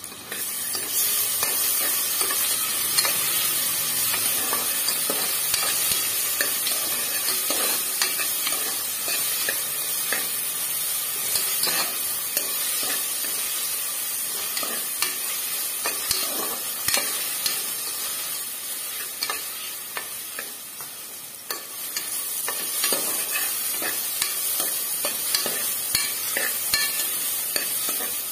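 Food frying and sizzling in hot oil in a cooking pot while a spatula stirs it, with frequent clicks and scrapes of the spatula against the pot. The sizzle eases briefly about two-thirds of the way in, then picks up again.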